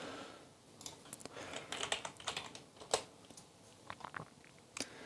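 Typing on a computer keyboard: a quick run of key clicks, then a few scattered clicks near the end.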